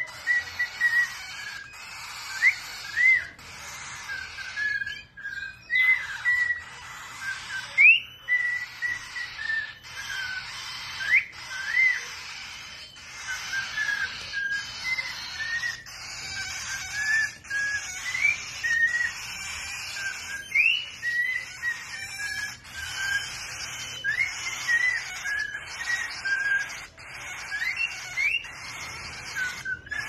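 Adult cockatiel whistling a repeated tune: short clear notes, each phrase opening with a quick upward sweep.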